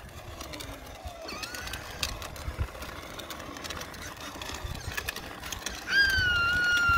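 Electric motor of a kids' battery-powered ride-on quad. It is faint at first, then about six seconds in a loud, steady high whine starts and slowly sags in pitch as the quad drives along.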